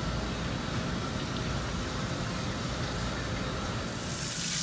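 Steady low rumble and hiss of machinery beside a live-lobster tank, typical of the tank's water pump and store refrigeration. Near the end a louder hiss of running tap water takes over.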